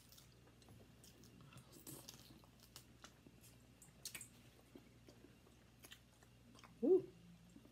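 Close-miked chewing of fast food (burger and chili fries): soft, scattered mouth clicks, smacks and small crunches, with a short voiced sound near the end.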